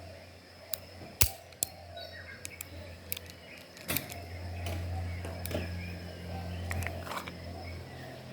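A KJW M9 gas blowback airsoft pistol firing, with one sharp crack about a second in and several fainter clicks around it. A low steady hum comes in at about four seconds and drops away near the end.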